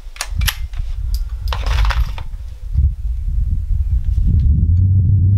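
Sharp metallic clicks and clinks as the bolt of a single-shot .22 LR youth rifle is worked by hand and a round is loaded. A low wind rumble on the microphone grows louder in the second half.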